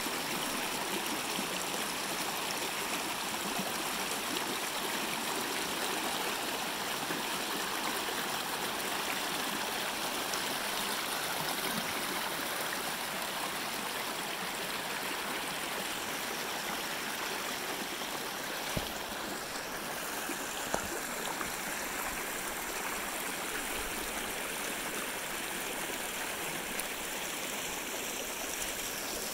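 Small snowmelt creek rushing steadily over rocks and branches, with a couple of brief, faint knocks past the middle.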